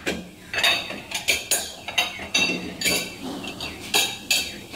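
White ceramic bowls clinking against one another as they are lifted from a plastic dish rack and stacked: a quick, irregular run of sharp clinks, each with a short ring.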